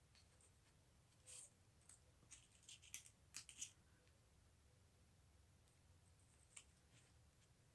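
Mostly near silence, with a cluster of faint, short clicks and rustles between about one and four seconds in and one more near the end. These come from hands handling wire-stemmed glass-bead flowers and stretching floral tape around the stem.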